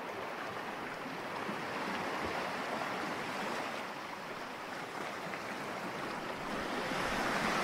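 Small sea waves washing in shallow water: a steady wash of water noise that swells slightly near the end.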